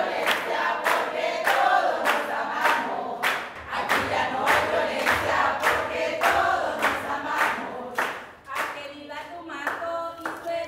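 A group of voices singing together, with steady handclaps keeping time at about two a second.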